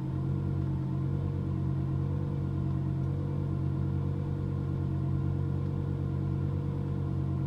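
Lamborghini Gallardo's V10 engine idling steadily at a raised cold-start idle, heard from inside the cabin.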